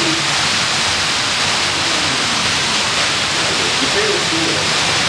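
Steady hiss-like background noise with faint voices murmuring behind it.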